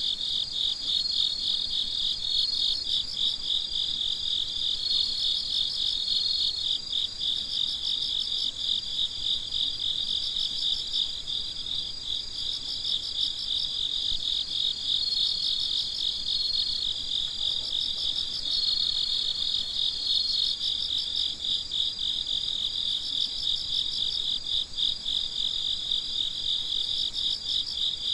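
A chorus of crickets chirping in rapid, dense pulses, with a higher, steadier trill that comes and goes every few seconds.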